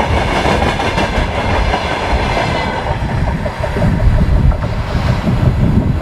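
Freight train of tank wagons rolling past, steel wheels clattering over the rail joints; about three seconds in the last wagon goes by and the clatter fades, leaving a low rumble.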